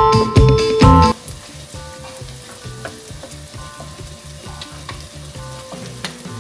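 Background music for about the first second, then it drops low and glutinous rice cooking thick in coconut milk sizzles in a wok as it is stirred with a wooden spatula and a fork, with soft music still faintly underneath.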